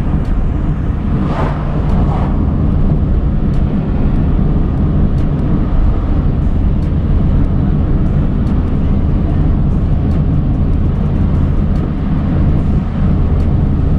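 Chevrolet compact car driving at a steady pace, heard from inside the cabin: an even engine drone with tyre and road noise. Light ticks or rattles come now and then, and there is a brief whoosh about a second and a half in.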